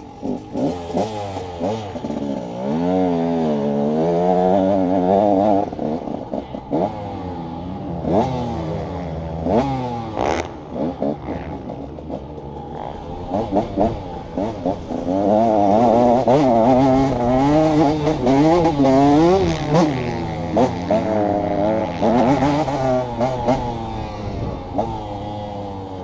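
2011 KTM 150 XC two-stroke single-cylinder dirt bike engine being ridden, revving up and down over and over as the throttle is worked. Scattered sharp knocks and rattles from the bike run through it.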